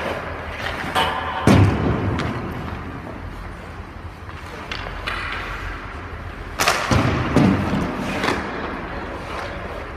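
Hockey goalie's gear and skates on the ice: sharp thuds and scrapes that echo around the rink. They come in two clusters, about a second and a half in and again around seven seconds in, over a low steady hum.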